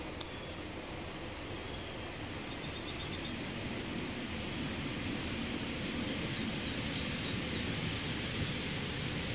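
Small songbirds chirping in quick runs of short, high notes that thin out towards the end, over a steady low background rumble.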